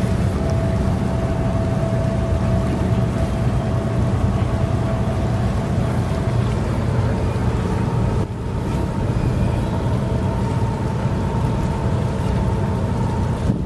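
Cruise ship Costa Fortuna moving close by: a steady low rumble with faint steady tones above it, dipping briefly about eight seconds in.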